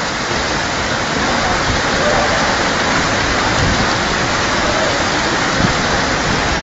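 Floodwater rushing with a steady, dense hiss.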